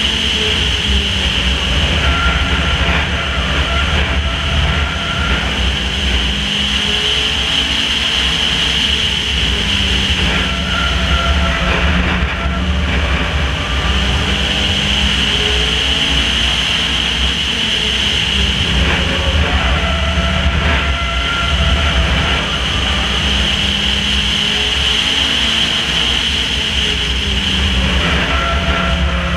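Racing car's engine running at speed around a short oval, heard from a camera mounted on the car, under a steady rush of wind and road rumble. The engine note comes and goes every several seconds as the car goes through the turns and down the straights.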